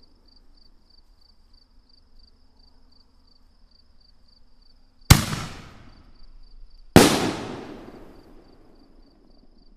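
Consumer fireworks artillery shell (Hog Wild Venom Artillery) bursting overhead: two sharp booms about two seconds apart, each trailing off over a second or two.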